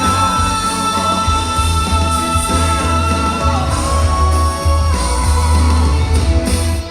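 Live band playing a pop-rock ballad through a concert PA, with heavy steady bass. A long held note runs through the first half and shifts near the middle.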